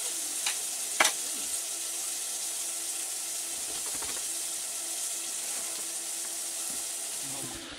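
Steak frying in a hot pan on a small stove, a steady sizzling hiss, with a sharp click about a second in.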